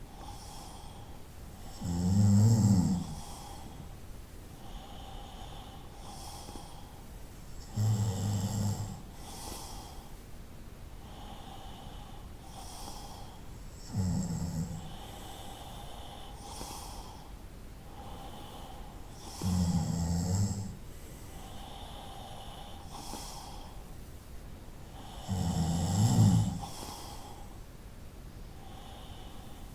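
Snoring in a slow, regular rhythm: five loud, low, rasping snores about six seconds apart, each lasting about a second, with softer breath sounds between them.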